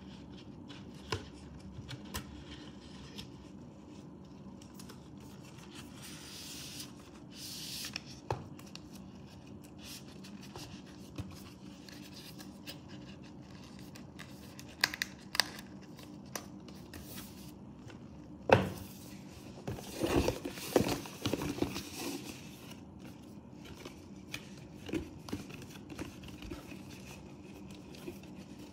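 Hands handling cardboard watch packaging: scattered taps and clicks, a papery sliding swish about seven seconds in, then a sharp knock past the middle followed by a flurry of scraping and rustling as boxes are handled and opened.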